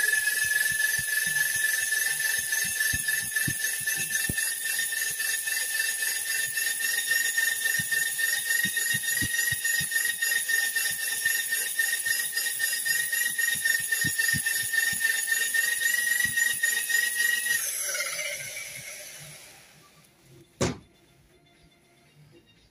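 Cylinder honing machine de-glazing the bores of a Simca Aronde 1300 engine block: a loud, steady, high metallic ringing squeal that creeps slightly up in pitch. It stops about 17 seconds in and winds down, followed by a single sharp knock. The hone takes the glaze off the bores without removing metal.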